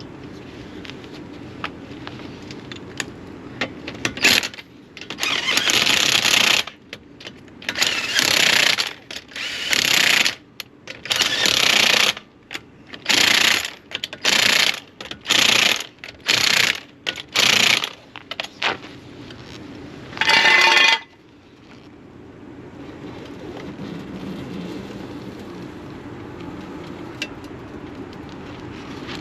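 Ingersoll Rand 1/2-inch air impact gun running lug nuts onto a wheel in about ten short bursts of rapid hammering, with a whine in the last burst just after 20 seconds.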